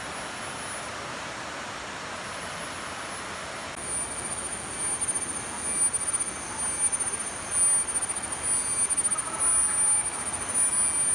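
Steady rush of flowing water from the forest waterfall stream. About four seconds in, a high-pitched insect buzzing from crickets starts up and carries on, swelling and fading in loudness.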